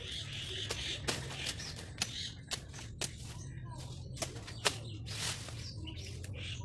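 Birds chirping in the background, with irregular sharp clicks and taps throughout, the loudest of them a little over four and a half seconds in.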